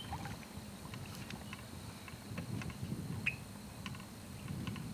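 Quiet creekside outdoor ambience: a faint, uneven low rumble with scattered light clicks and ticks, and one short falling bird chirp about three seconds in.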